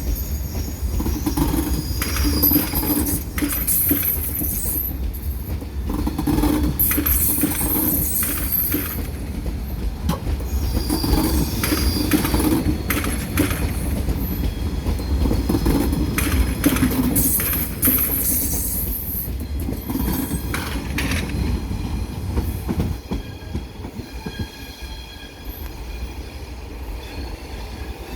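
Frecciargento ETR600 high-speed electric train pulling out on its wheels, with a steady low rumble, repeated clicks of the wheels over rail joints and points, and high wheel squeal in places. It fades somewhat over the last few seconds as it moves away.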